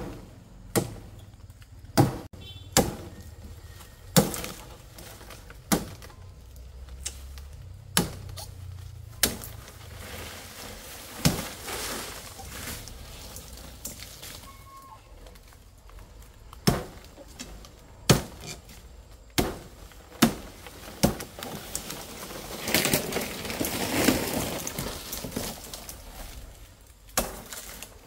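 Sharp chopping strikes, one every second or two, as a blade cuts into the stems of fan palm fronds, with a longer rustle of leaves about 23 seconds in.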